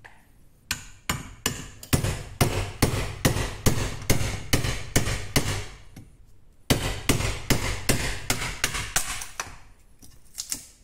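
A hammer repeatedly striking the striking cap on the handle of a Parkside Performance screwdriver, driving its blade into a wooden block. The blows come at about two to three sharp strikes a second, pause briefly about six seconds in, then resume, with a couple of lone blows near the end.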